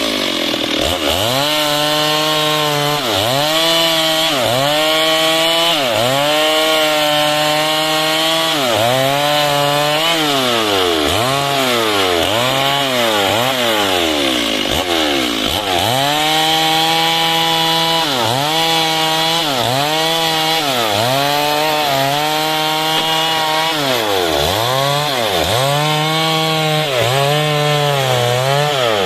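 Two-stroke chainsaw cutting through timber, its engine speed dropping and climbing back again about every second or two as the chain bites and the throttle is worked.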